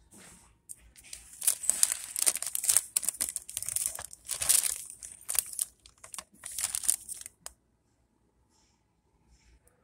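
Clear plastic sleeve around a potted orchid crinkling as it is handled, a dense crackle of quick clicks starting about a second in and stopping about two seconds before the end.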